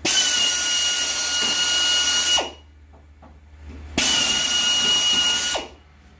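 Compressed-air drill running in two bursts, the first about two and a half seconds, the second about a second and a half, each starting and cutting off sharply. It is drilling two holes up through the sheet metal of a truck's tailgate. The sound is a steady high whine over the hiss of air.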